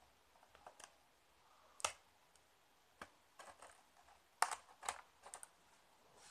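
Scattered sharp clicks and light scrapes of a thin blade working into the seams of a cardboard box to cut through its seal stickers. The loudest click comes about two seconds in, and a cluster of clicks follows in the second half.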